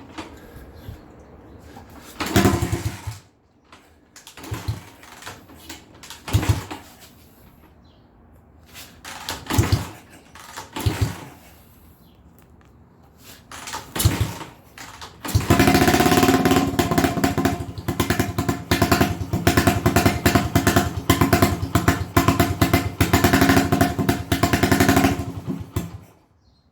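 1980 Honda XL250S single-cylinder four-stroke engine being started. Several short bursts of firing die out, then it catches about halfway through and runs with a fast, even beat for about ten seconds before stopping suddenly near the end. The bike has hard-starting and idle trouble that the owner suspects is carburettor mixture, running too rich.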